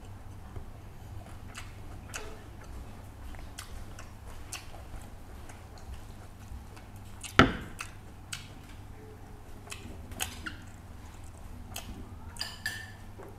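A person eating rice and fish curry by hand: scattered short wet clicks and smacks of chewing and of fingers working the rice in the bowl, one much sharper and louder about seven and a half seconds in, over a steady low hum.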